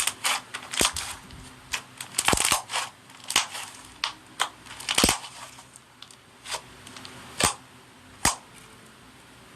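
Slime being kneaded and pressed, giving a dozen or so irregular sharp clicks and pops with faint crackling between them.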